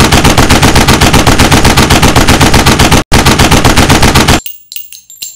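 Rapid burst of automatic gunfire, about six or seven shots a second, broken once briefly about three seconds in and stopping abruptly near the end, followed by a few faint clicks and high ringing tones.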